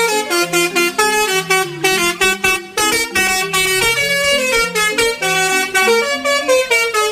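Telolet bus horn playing a fast tune of short, pitched horn notes that step up and down, about four notes a second without a break.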